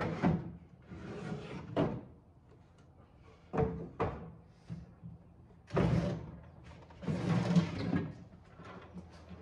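Wooden drawers of an old sideboard being pulled out and set down: scraping wood-on-wood slides about a second long, broken by several sharp knocks.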